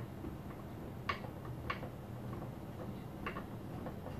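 Metal pole bracket and carriage bolts being handled and fitted together: three light, sharp metallic clicks, about a second in, shortly after, and again near the end.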